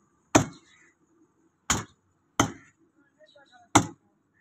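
Heavy meat cleaver chopping beef on a wooden log chopping block: four sharp chops at an uneven pace.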